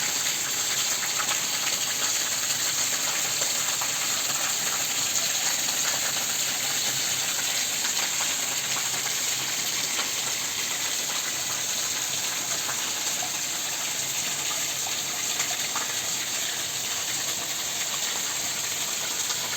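Steady rain falling: a dense, even hiss with many small drop impacts.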